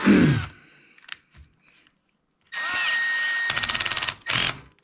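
Cordless drill-driver driving an Allen bolt. A short run winds down about half a second in. A longer steady whir starts a couple of seconds later and breaks into a rapid clatter as the clutch slips at its torque setting, followed by one short final burst.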